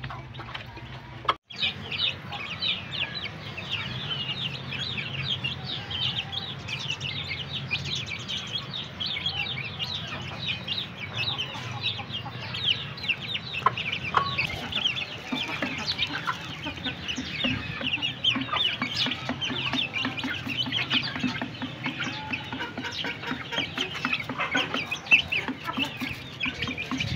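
A group of young Aseel chickens peeping constantly in quick, high chirps, with a hen's lower clucking mixed in, mostly in the second half.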